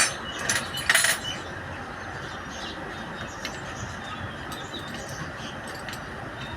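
Metal engine parts and tools being handled: a few sharp clinks in the first second, then steady background noise with faint ticks.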